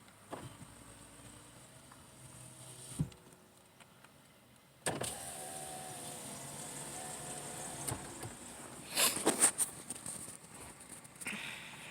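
Car power window motor running for about three seconds with a steady whine that starts suddenly, followed by a cluster of loud knocks and clicks.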